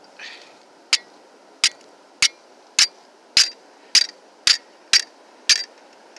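Steel back of a Corona folding saw struck against a flint rock, flint-and-steel style, to throw sparks onto char cloth. Nine sharp clicking strikes come about every 0.6 s, after a faint scrape.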